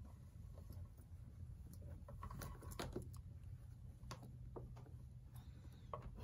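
Hands handling a restored vintage Coach Carnival leather crossbody purse: faint, scattered light taps and clicks from the bag, its strap and brass hardware, with soft rustling of the leather.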